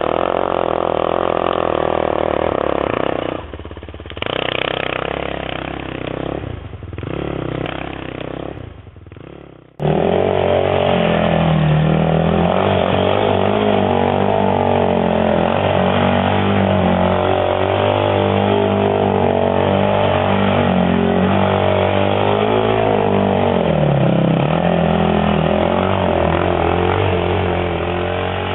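Single-cylinder 450 sport quad engines running and revving. The sound dips and swells for several seconds, then cuts abruptly to a louder, steady engine note that rises and falls with the throttle.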